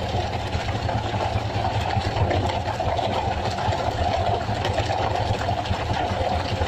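Fishing boat's engine running steadily, a low hum with a rattly mid-range, with many faint light knocks over it.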